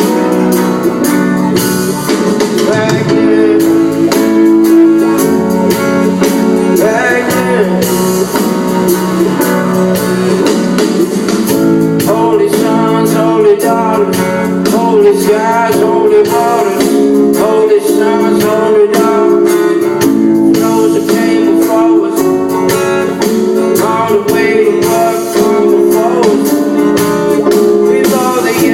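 Live band playing a song with guitar and a singer's voice over a steady beat.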